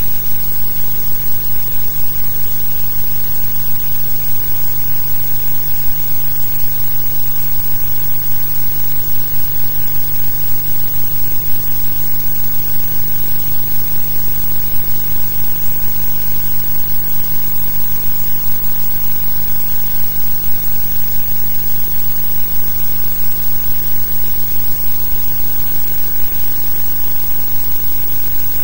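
Steady hiss with a low electrical hum: the blank sound track of a silent archival newsreel film transfer, with no recorded sound of the scene.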